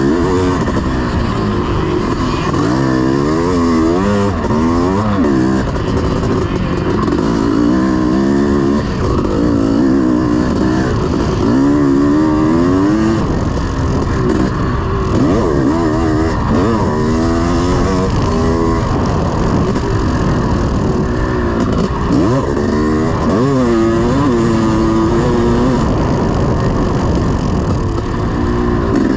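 1986 Honda CR500's two-stroke single-cylinder engine being ridden hard, its pitch climbing and dropping again and again as the throttle is opened and closed.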